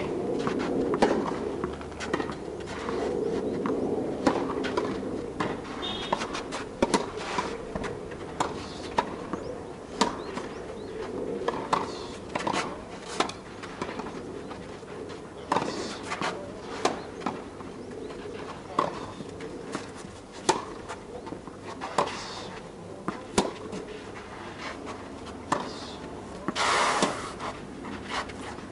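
Tennis ball being struck by rackets and bouncing on the court during a rally: a string of sharp pops, a second or less apart. Near the end, a brief scuffing rush of noise.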